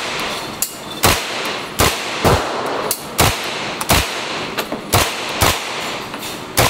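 Heckler & Koch MP5 submachine gun fired in single shots, one crack every half second to a second, about eight shots in all, with a couple of fainter cracks between them.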